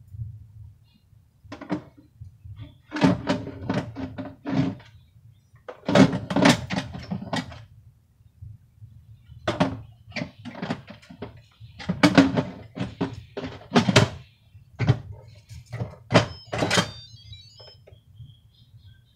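Stainless steel lid of an electric pressure cooker clanking and knocking against the pot as it is set on and twisted to lock. Repeated bursts of metal knocks, some of them briefly ringing.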